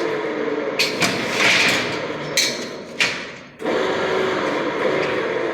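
Hammer blows: about four sharp knocks in the first three seconds over steady background noise.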